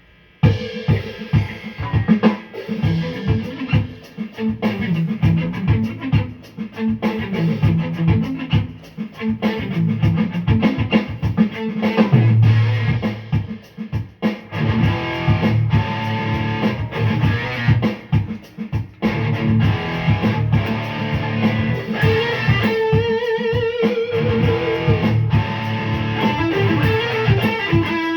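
Rock music with electric guitar and drum kit, starting abruptly just after the opening.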